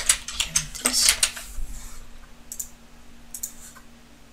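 Computer keyboard keystrokes and mouse clicks: a quick flurry of clicks in the first two seconds, then a few scattered clicks.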